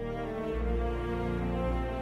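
Background music of long held notes, with a deep low note coming in about half a second in.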